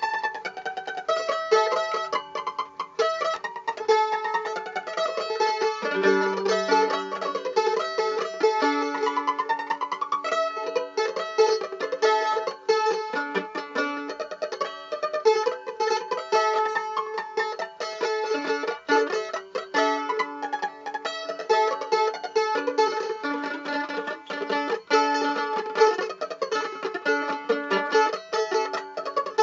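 Instrumental music on a plucked string instrument, played as a quick run of picked notes, with some longer held lower notes mixed in.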